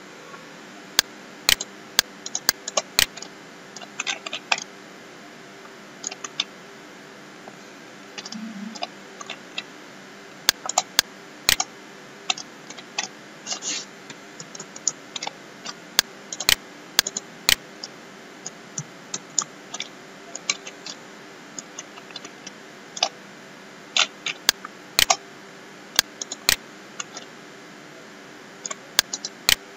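Irregular sharp clicks of a computer mouse and keyboard, some single and some in quick runs, over a faint steady hum.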